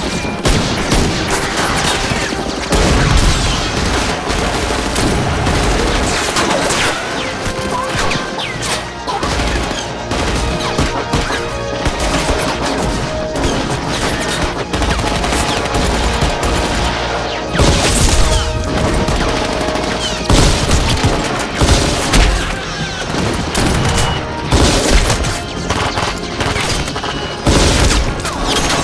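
Sustained heavy automatic gunfire: a dense, continuous fusillade of shots from the shootout's sound effects, with action music underneath.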